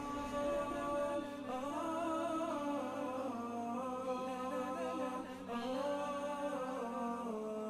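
Background music of wordless humming voices: a slow melody that moves in steps over a steady low drone.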